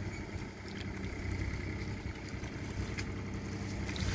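Low wind rumble on the microphone over faint sloshing of paddy water as a worker wades and pushes rice seedlings into the flooded mud, with a faint tick about three seconds in.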